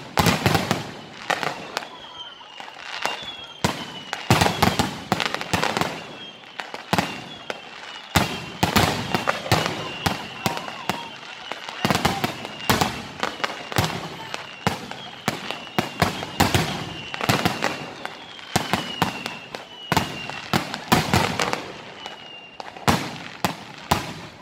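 Fireworks display in full swing: aerial shells bursting in a rapid, continuous series of bangs and crackles. High whistles falling in pitch repeat throughout.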